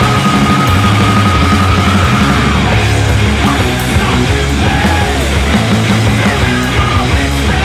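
Loud rock music with a heavy beat and a sung or shouted vocal line.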